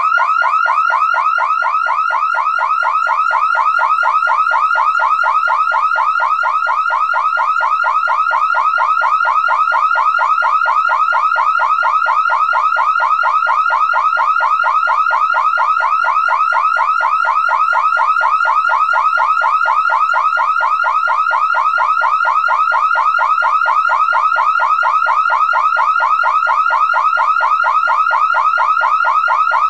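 Car alarm siren going off continuously: a loud, fast warbling tone that sweeps in pitch several times a second, without a break.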